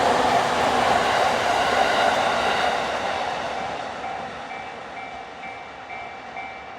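A train passing over a level crossing, its rumbling rail noise fading away through the second half. As it fades, the crossing's electronic warning bell comes through clearly, ringing in a steady repeated pattern, the sign that the crossing is still closed.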